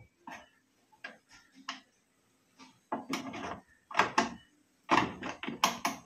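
Screwdriver clicking and scraping as screws are turned out of a top-load washing machine's plastic top panel: irregular small clicks, growing denser and louder about halfway through as the screws come free and are handled.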